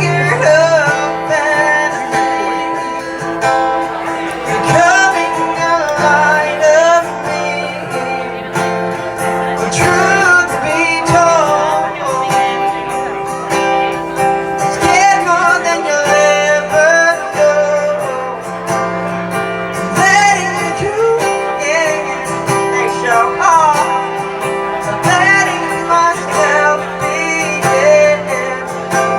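A song performed live on guitar with a singing voice: sung phrases come and go over steady guitar chords.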